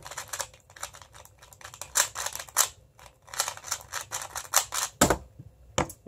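MoFang Jiaoshi MF2S 2x2 speedcube being turned fast during a timed solve: a dense, irregular run of sharp plastic clicks from the layers snapping round. About five seconds in comes a louder knock as the cube is put down at the end of the solve.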